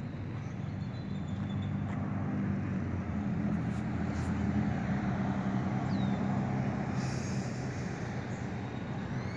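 Engine drone of a propeller airplane flying overhead: a steady low hum that grows to its loudest around the middle and then eases off.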